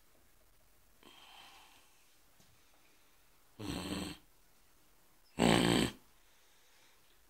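Boxer dog making two short, rough vocal sounds a little under two seconds apart, the second louder.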